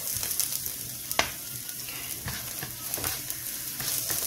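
Chopped onion sizzling in hot olive oil in a nonstick frying pan, with a spatula scraping and tapping against the pan as the onion is stir-fried.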